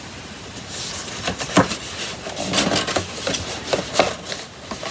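Patterned card paper handled and folded by hand: rustling and crinkling, with a few sharper taps and clicks as it is pressed and moved.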